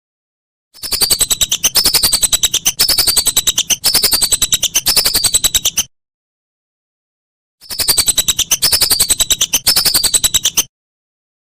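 Lesser whistling duck (belibis) calling: fast trains of high whistled notes, each set topped by a falling whistle that repeats about every three-quarters of a second. It comes in two bouts, one of about five seconds and one of about three, separated by a gap of dead silence.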